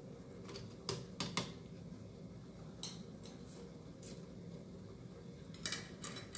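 Light clinks and knocks of dishes and utensils being handled around a hotpot: a quick cluster about a second in, a couple of single ones, and two more near the end, over a low steady hum.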